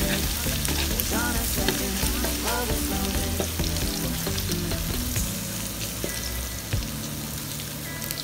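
Minced garlic sizzling in hot oil in a wok, stirred and scraped with a metal spatula. This is the garlic being fried until fragrant at the start of a stir-fry.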